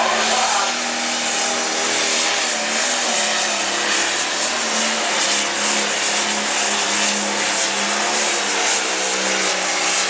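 Turbocharged diesel engine of a light pro stock pulling tractor running flat out under load while it drags the weight-transfer sled, a loud steady engine note that holds its pitch.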